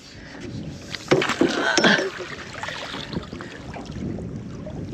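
Splashing and knocks as a landing net scoops a hooked jewfish out of the water beside the boat hull, busiest about one to two seconds in, then lapping water.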